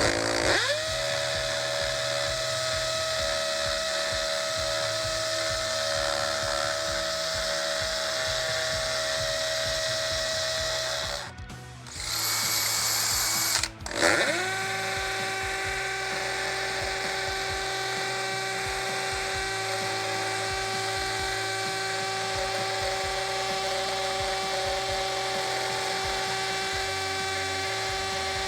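DeWalt DCD1007 18V brushless hammer drill drilling into reinforced concrete. It spins up with a rising whine and runs at a steady pitch for about eleven seconds, stops briefly with a hiss, then spins up again and runs steadily through the rest.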